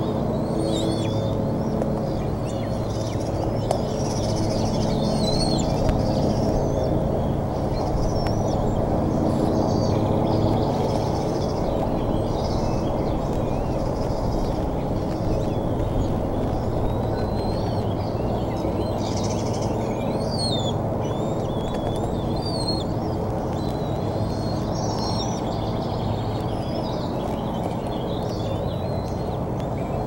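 Small songbirds chirping and singing in short, wavering phrases throughout, over a steady low rumble with a faint hum in it.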